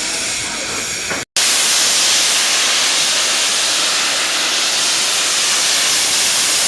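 Steady hiss of steam from the standing Merchant Navy class locomotive 35028 Clan Line. It breaks off for an instant about a second in, then carries on louder and unbroken.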